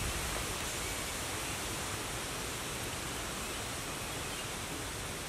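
Steady outdoor forest ambience: an even hiss with no distinct calls, knocks or other events.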